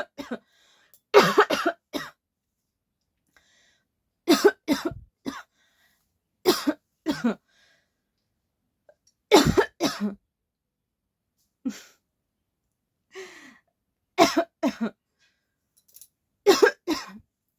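A person coughing repeatedly, in short clusters of two to four hacking coughs every couple of seconds, with brief pauses between them.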